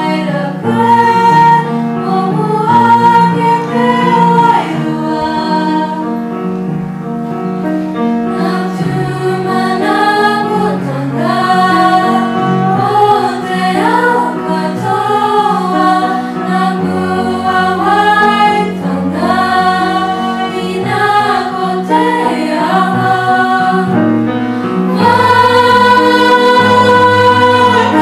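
A girls' choir singing, the voices holding long notes; it swells to its loudest on a long held note near the end.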